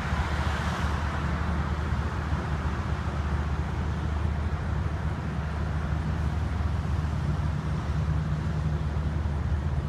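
Steady low rumble of idling engines in stopped road traffic, a continuous hum with an even hiss of traffic noise over it.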